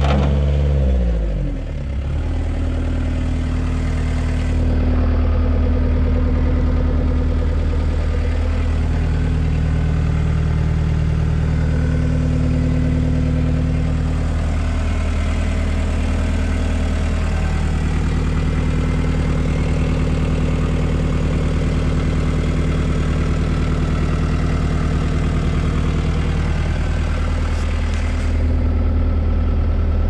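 New Holland LS160 skid steer's diesel engine running. Its speed falls in the first couple of seconds, then it runs steadily.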